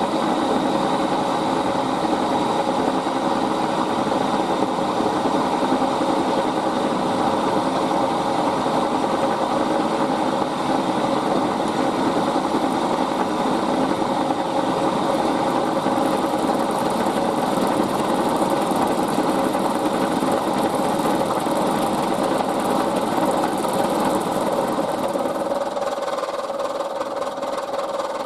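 Milling machine running and cutting a brass bar held in the vise, flattening its edge down to a scribed line. A steady, loud machine noise with a constant whine, changing slightly near the end.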